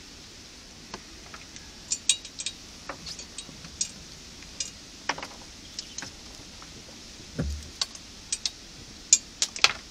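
Irregular light clicks and clinks of fishing tackle being handled while a fish is taken off the hook, with one dull thump about seven seconds in.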